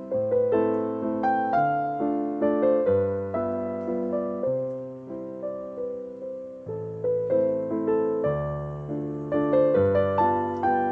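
Background piano music: a melody of struck notes over low chords, each note fading after it is played.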